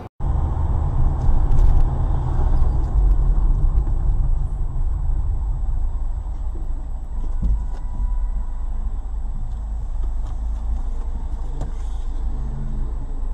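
Steady low rumble of a car's engine and road noise heard from inside the cabin through a dashcam's microphone, loudest in the first few seconds and then even.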